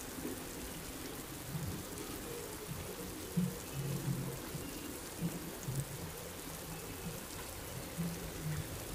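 Steady rain falling on a wet asphalt road and leaves, with a few low dull thumps underneath.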